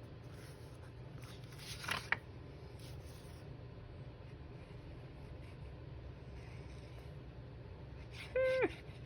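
Quiet handling of paper on a craft table: light rubbing and scratching, with a brief scrape about two seconds in. Near the end comes one short pitched sound that falls in pitch as it ends.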